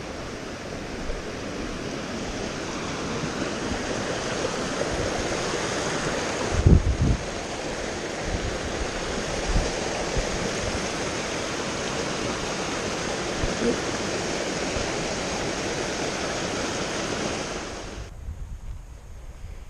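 Steady rushing of a small fell beck cascading over rocks, running full after recent rain. A brief low thump comes about a third of the way through, and the rushing cuts off suddenly near the end, leaving a much quieter background.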